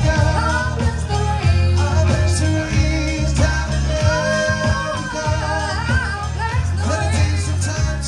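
Live band playing a song: a singer carries a gliding melody over a steady low bass line and regular drum hits.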